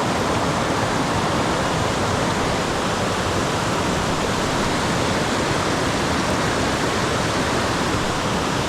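Rushing water of a mountain stream swollen after a typhoon: a loud, steady, unbroken rush.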